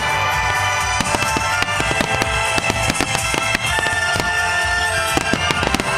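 Aerial fireworks shells bursting in quick, irregular succession, many sharp bangs overlapping, over sustained music.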